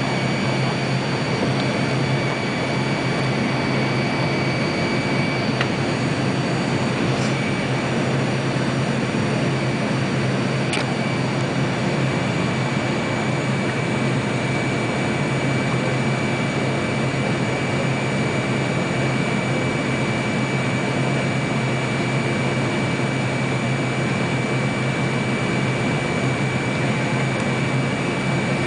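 Steady cabin noise inside an American Airlines MD-80 (Super 80) jetliner on its descent: the rush of airflow and the rear-mounted Pratt & Whitney JT8D turbofans, with a low hum and a steady high whine.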